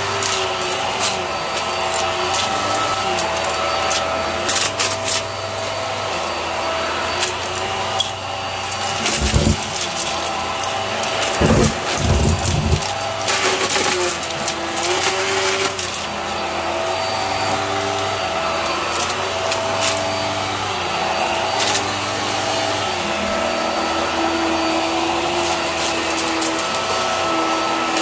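Hart bagless upright vacuum cleaner running steadily on carpet, with clicks and rattles as balloons and small debris are sucked up. A few louder thumps come about nine to thirteen seconds in.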